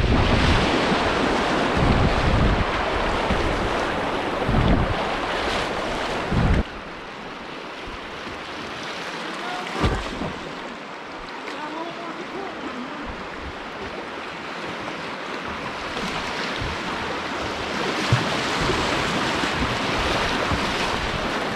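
River rapids rushing and splashing around a whitewater kayak, with wind buffeting the microphone. About six and a half seconds in, the rushing drops suddenly as the boat reaches flat water, then builds again near the end as it enters the next riffle.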